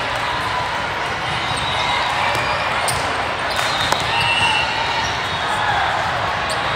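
Busy indoor volleyball hall din: a crowd of voices mixed with volleyballs being struck and bouncing across many courts, with a few sharp ball hits about three to four seconds in, all echoing in the large hall.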